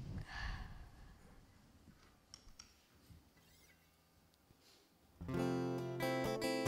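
Soft rustling and a few faint clicks as people get up from chairs, then an acoustic guitar starts strumming chords about five seconds in.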